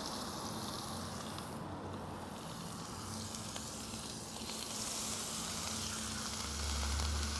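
Rub-coated racks of lamb searing in hot oil in a smoking cast iron skillet, a steady sizzle. The sizzle grows a little about halfway through as the second rack is laid in.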